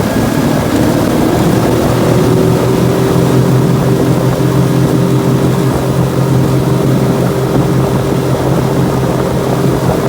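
Suzuki DF25A 25 hp four-stroke outboard motor running flat out on a top-speed run, its note holding steady. It turns a 13-pitch propeller that lets it rev out without screaming.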